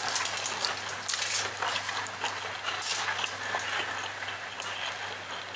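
Close-up eating sounds: wet chewing and many small mouth clicks and smacks as rice and chicken liver and gizzard adobo are eaten by hand, over a low steady hum.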